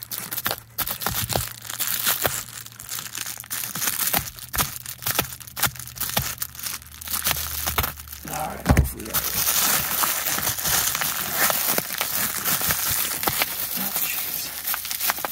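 Bubble wrap and plastic packaging crinkling as it is cut and pulled open with a multitool blade, with many small snips and handling clicks. There is a dull thump a little before the middle, and after it the crinkling becomes denser and steadier.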